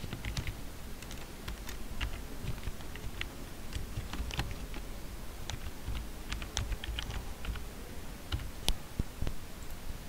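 Typing on a computer keyboard: irregular key clicks as a short line of text is typed.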